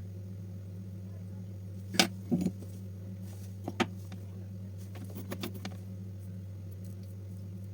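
A steady low electrical hum throughout, with a handful of sharp small metallic clicks and clatters: one about two seconds in, a short cluster just after, two near four seconds, and a few fainter ones between five and six seconds.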